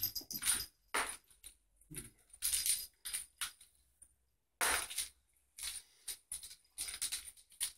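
A small bell jingling in short, irregular shakes as a cat bats at a dangled toy mouse.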